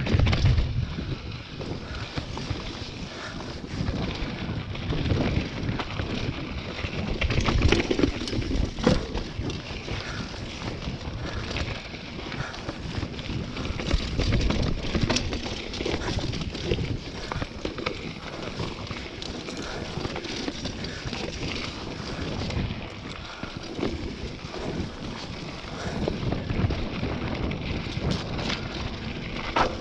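Mountain bike descending a dry, rocky dirt trail: wind buffeting the microphone, with tyres crunching over dirt and stones and frequent knocks and rattles from the bike over the bumps.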